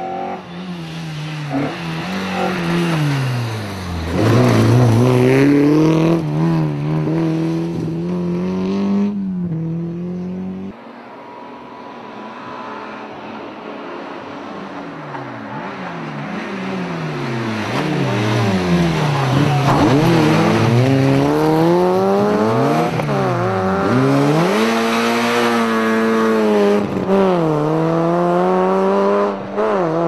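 Rally cars driven flat out on a tarmac stage, one after another. Each engine revs hard, its pitch climbing and dropping with every gear change, and grows loud as the car comes past. A Peugeot hatchback is heard for the first nine seconds or so; after a cut, a Citroën Saxo rally car goes through a long run of shifts.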